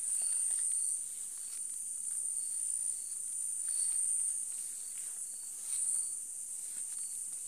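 Steady, high-pitched chirring of crickets, with a few faint soft ticks.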